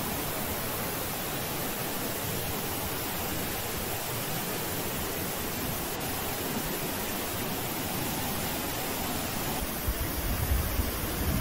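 Flash-flood water rushing down a desert wadi: a steady rush of churning, muddy water. Near the end a louder, uneven low rumble comes in.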